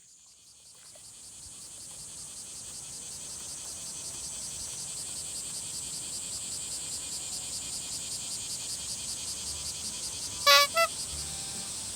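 Chorus of insects, a high, fast-pulsing buzz that fades in over the first few seconds and then holds steady. About ten and a half seconds in, a short pitched call sounds over it.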